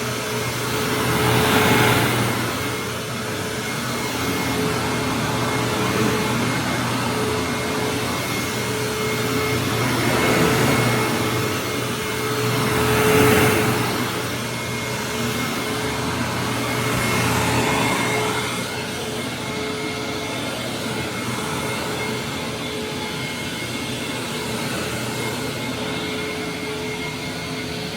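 Hoover WindTunnel Supreme upright vacuum cleaner running steadily with a whining hum. It swells louder several times, about four, as it is worked.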